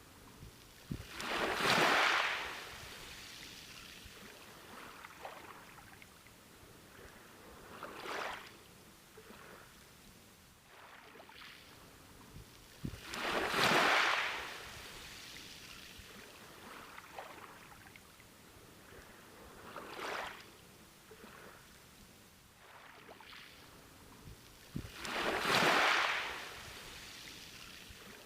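Ocean waves breaking and washing up a beach. Each wave swells into a rushing surge and fades back to a low hiss, about every six seconds, with the bigger waves about every twelve seconds and smaller ones in between.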